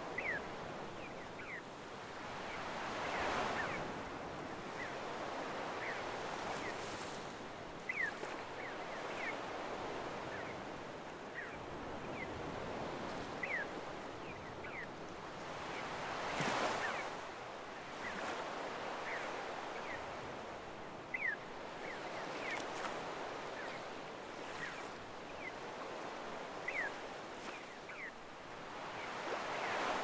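Small waves washing up on a sandy beach, swelling into three louder surges about thirteen seconds apart. Many short, high, falling gull calls sound over the surf.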